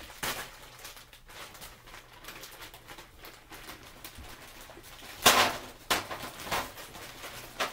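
Plastic bag of frozen broccoli florets crinkling as it is handled and tipped. About five seconds in comes a loud rustling clatter as the first frozen florets tumble into an aluminium foil pan, followed by a few smaller rattles.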